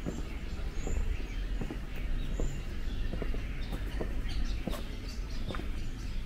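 Footsteps on stone paving, short sharp steps about every half second, over a steady low rumble, with occasional bird chirps.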